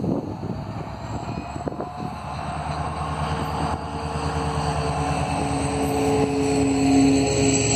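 EMD WDP4 diesel-electric locomotive's 16-cylinder two-stroke engine working under throttle as it hauls an express train past, growing steadily louder to a peak about seven seconds in. The passenger coaches roll by near the end, and wind buffets the microphone near the start.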